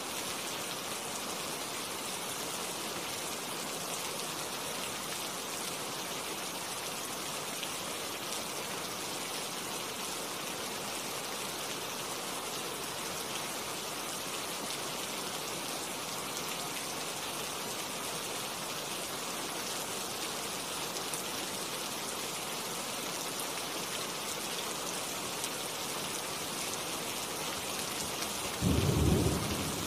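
Steady rain falling on tree leaves, an even hiss of drops. Near the end a brief low rumble is the loudest sound.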